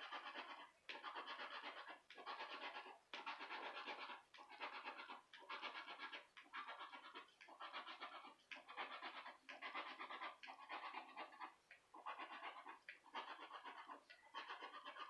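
Scratch-off lottery ticket being scratched, the coating rubbed off in repeated short strokes about one a second.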